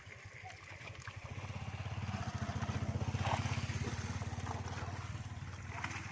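A small engine runs with a fast low throb, growing louder over the first three seconds and then slowly fading, as if passing by. Brief water splashes sound over it.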